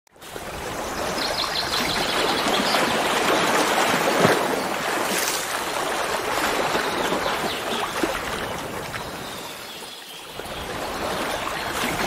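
Steady rush of running water, like a waterfall, with a brief run of faint high chirps about a second in; the rush eases a little near the end.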